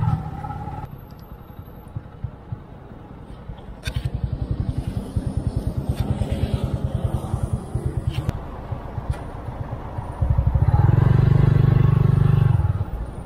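Motorcycle engine running in city traffic. From about four seconds in it pulls with a fast, even low pulsing, and near the end there is a louder, deeper spell of engine noise for a couple of seconds.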